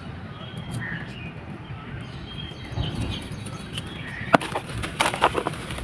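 Gritty sand-cement balls crumbling: a low rustle, then a run of sharp, crunchy crackles from about four seconds in.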